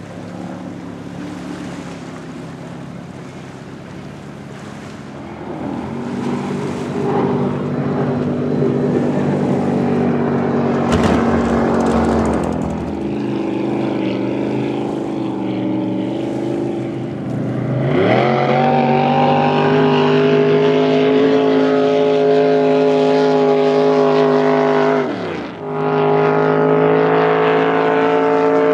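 Supercharged V8 of a blown flat-bottom drag boat running through open headers. The engine note climbs in pitch as the throttle opens about two-thirds of the way through and holds steady at speed. Near the end it dips briefly and then picks up again.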